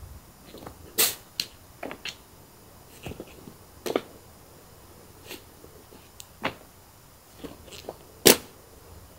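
A cat batting at a wand toy beside a fabric cat tunnel: about a dozen short, sharp taps and rustles at uneven intervals, the loudest about a second in and near the end.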